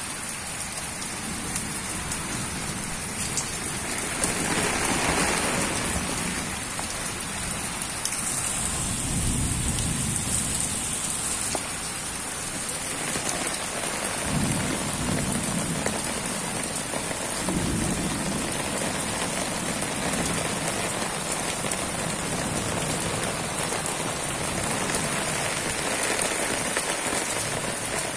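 Heavy rain pouring steadily onto trees, leaves and the ground, a dense continuous hiss that swells lower and fuller now and then.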